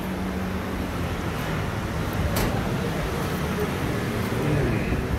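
Street traffic noise: a continuous rumble of passing engines, with a steady low engine hum in the first second or so and a single sharp click about two and a half seconds in.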